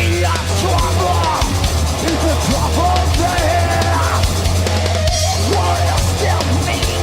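Thrash metal played by a band: drum kit, bass and distorted guitars, loud and continuous, with pitched lines bending up and down over the top.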